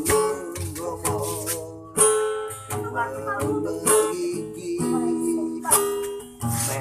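Song accompaniment of a strummed acoustic guitar, with singing voices.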